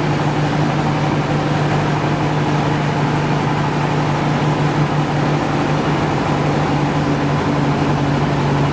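A motor running steadily, a constant hum with no change in speed.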